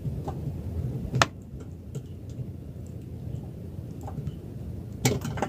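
Scattered sharp clicks and knocks, one loud one about a second in and a small cluster near the end, over a steady low rumble.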